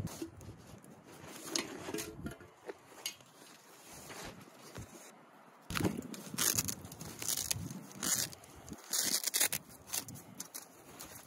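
Rustling and crinkling of canvas and cloth pouches being handled and unfolded, with a few light knocks and clicks of small gear being set down on the rock.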